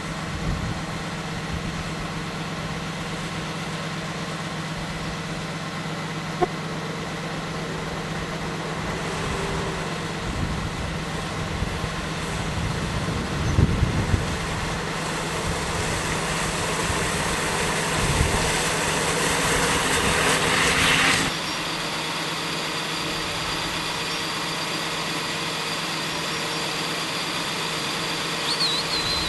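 Vehicle engine running as it drives over rough ground, with a few dull thumps from bumps. A louder hiss builds over several seconds and cuts off suddenly about two-thirds of the way through.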